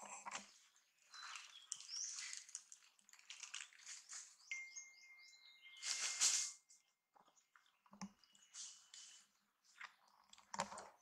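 Faint, scattered rustling and crunching of dry leaf litter, loudest about six seconds in, with a few high chirps and a thin steady tone held for a couple of seconds in the middle.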